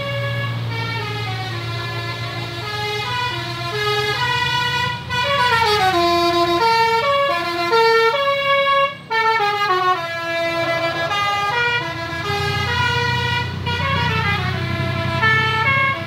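A tour bus's telolet basuri musical horn playing a tune of stepped, held notes, with a short break about nine seconds in, over the steady low rumble of the bus's engine.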